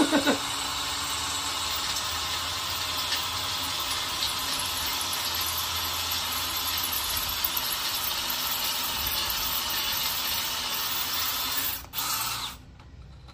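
DeWalt cordless drill boring into a steel bolt on a rake frame, running steadily under load for about twelve seconds, then a brief pause, a short final burst, and it stops.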